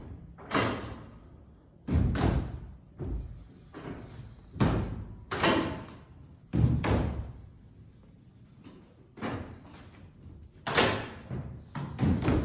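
Folding seats on telescopic bleachers being flipped down one after another, each landing with a sharp clack or thud, about a dozen in irregular succession.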